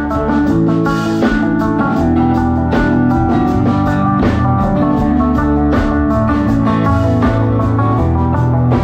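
A band playing, with guitar notes over a bass line and a drum kit; a strong drum hit lands about every second and a half, with lighter hits between.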